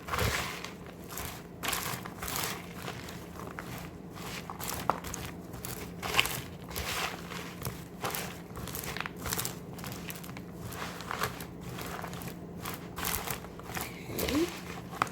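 Popcorn coated in white candy melt, with crushed vanilla wafers and mini marshmallows, being stirred in a bowl: a crunchy, crinkling rustle that comes in repeated, uneven strokes.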